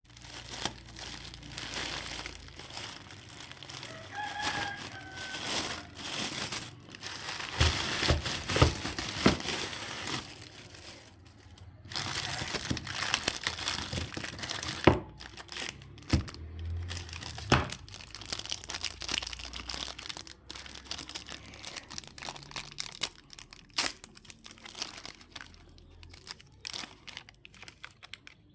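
Irregular rustling and crinkling handling noise with scattered sharp clicks and knocks, louder in spells and quieter around the middle and near the end.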